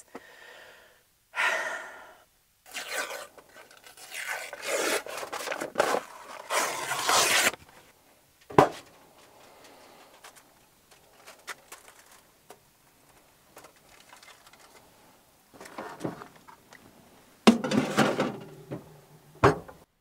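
A tube of refrigerated cinnamon-roll dough being opened by hand: papery rustling and tearing, then one sharp pop a little before halfway as the tube bursts, followed by light clicks of handling at a foil-lined baking tray and a short burst of handling noise near the end.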